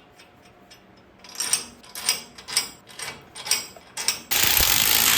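Hand ratchet wrench cranked in about five strokes roughly half a second apart, each a burst of clicking, while the axle extension is drawn into the Coleman axle housing. About four seconds in, a loud, steady, even noise starts and carries on to the end.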